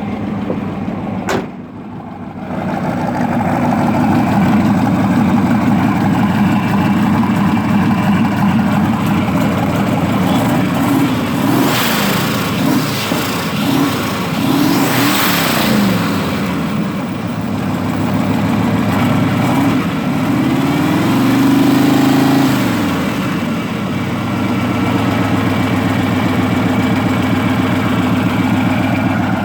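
Turbocharged 1984 GMC 1500's stock 305 small-block V8 running through a large 4-to-5-inch exhaust: idling, then revved with the pitch rising and falling about ten seconds in and again about twenty seconds in. A rising hiss from the turbo spooling comes with the first revs.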